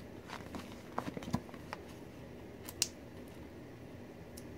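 Faint handling noise of a glossy sticker sheet: small clicks and ticks as a fingernail picks at a sticker to peel it off, a few close together about a second in and one sharper click near three seconds.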